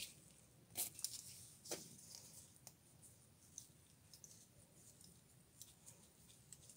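Near silence, with two faint taps a little under a second apart early on and a few smaller ticks later: small tools being handled and set against a wooden workbench.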